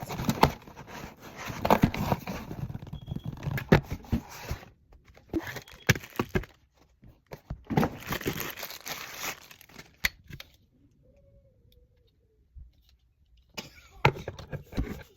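Packaging being torn open and crinkled by hand as a package is unboxed, in several bursts of tearing and rustling over the first nine seconds, then a quiet stretch and one more short burst near the end.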